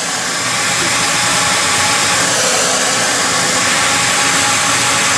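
Heat gun running on a steady blow: a loud rush of air with a steady motor whine under it.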